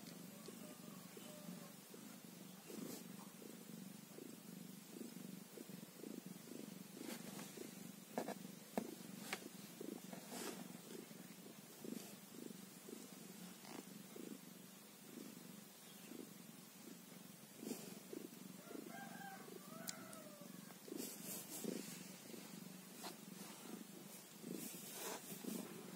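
Mother cat purring steadily and low while her newborn kittens nurse, with faint rustles and clicks of handling and a brief faint squeak about three-quarters of the way through.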